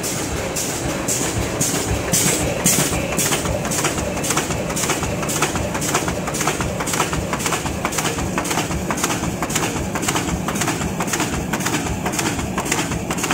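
Roll-fed flatbed die cutting and creasing machine running, its press and hole-stripping section clacking in a steady rhythm of about three strokes a second over a continuous mechanical hum.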